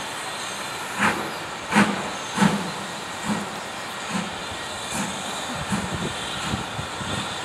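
BR Standard Class 4 2-6-4 tank locomotive 80072 starting away slowly under steam: slow, separate exhaust beats about one a second over a steady hiss of steam.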